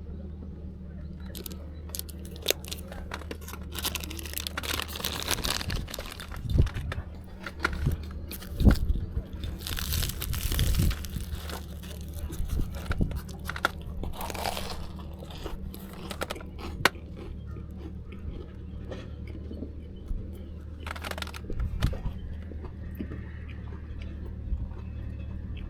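Close crunching and chewing of food, with scattered clicks and rustles, over a steady low hum.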